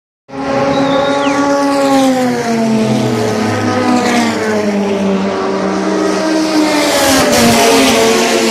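Racing car engines running loud, several engine notes overlapping, their pitch falling slowly over several seconds.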